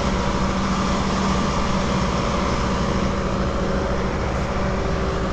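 An engine running steadily with an even, unchanging drone.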